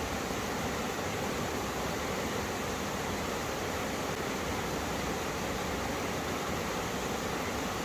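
Mountain stream water rushing over rocks where two streams meet, a steady even rush of running water.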